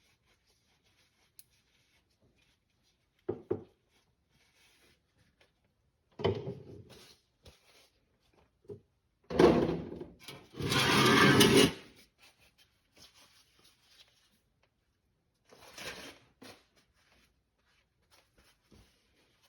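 Scattered knocks, clatters and scrapes of tools and parts being handled, with a louder hissing rush lasting about a second a little past the middle.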